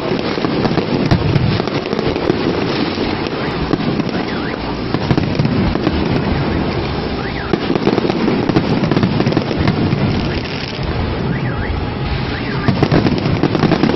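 Fireworks display: a dense, continuous barrage of aerial shell bursts and crackling, with a few short whistling glides partway through.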